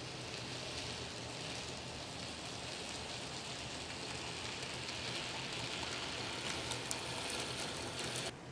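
Model railway trains running along the track: a steady rushing hiss of wheels on rail and motor hum, with a few sharp clicks near the end, cutting off abruptly just before the end.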